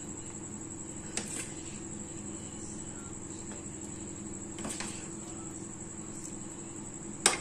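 A few light knocks of a spoon against a steel cooking pot as chicken masala is spooned onto layered biryani rice, the sharpest knock near the end. A steady low hum and a faint high-pitched whine run underneath.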